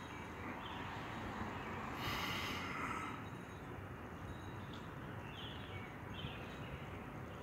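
Storm wind rushing over the phone's microphone, with a louder, brighter rush lasting about a second, two seconds in.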